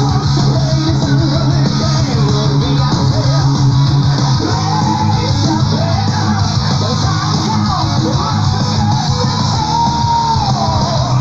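Power prog metal recording with distorted electric guitars, bass and drums, and a melodic lead voice or guitar line wavering above.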